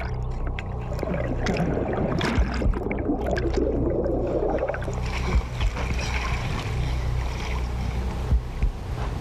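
Water splashing and sloshing in an indoor swimming pool, busiest in the first half, over a steady low hum, with a few scattered knocks.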